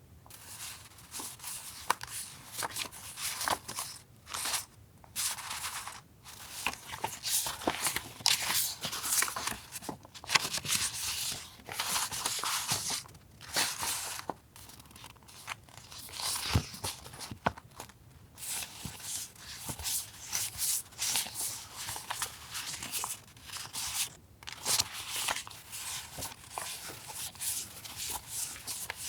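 Paper and packaging rustling and crinkling in irregular bursts as stationery is handled, with small taps and clicks in between.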